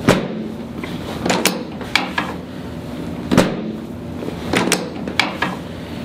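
A chiropractic drop table's pelvic section knocking down as the chiropractor thrusts on the sacrum, with sharper mechanical clicks between. There are about ten sudden knocks and clicks in all, and the heaviest come right at the start and about three and a half seconds in.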